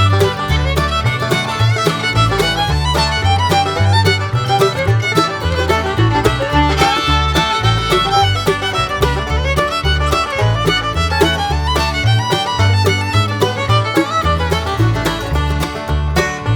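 Background bluegrass music: a fiddle plays the melody over a steady walking bass beat.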